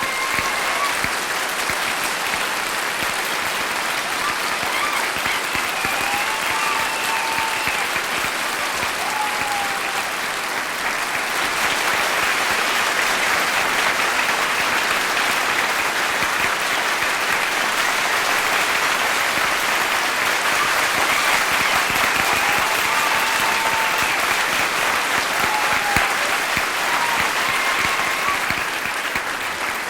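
Large audience applauding steadily in a big, reverberant hall, the clapping swelling fuller about a third of the way in and easing slightly near the end.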